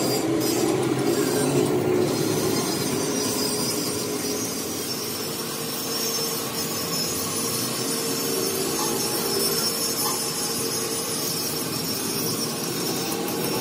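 Gravity-feed air spray gun hissing steadily as it sprays paint, with a steady machine hum underneath.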